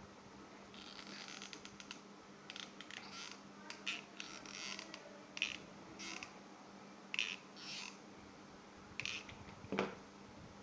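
Handling noise of quilled paper-coil panels: short rustles and scrapes as the stiff paper pieces are turned in the hands and pushed against each other on the table, with a firmer knock near the end. A steady low hum runs underneath.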